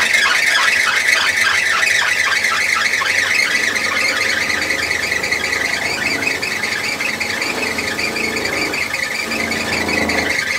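Electric sheepskin ironing machine running, its heated roller turning steadily. There is a rhythmic ticking of about five beats a second for the first few seconds, then the roughness of the fleece being pressed against the roller.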